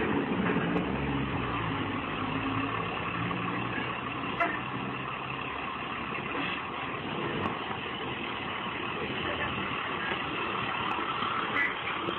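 A bus engine running close by amid street traffic noise, with one short knock about four seconds in.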